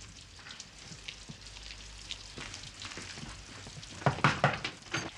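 Heavy rain falling, a steady crackling hiss full of fine drop ticks. About four seconds in, a few loud knocks or bumps cut through it.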